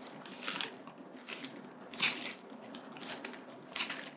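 Pruning shears snipping and scraping through the roots and potting soil of a root ball to cut away moldy roots. The sound is several short crisp snips, the loudest about two seconds in.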